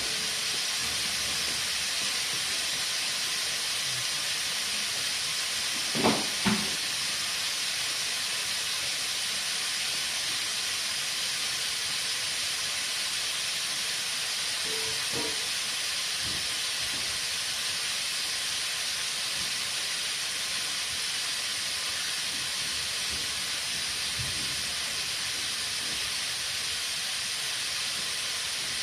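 Compressed air hissing steadily from a tire inflator into a stretched tire on a tire changer, with air escaping past the bead that has not yet sealed. Two short knocks come about six seconds in.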